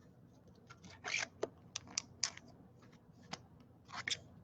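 A scattered run of light clicks and short scrapes, about a dozen in all, the longest a brief scrape about a second in and a tight cluster just after four seconds.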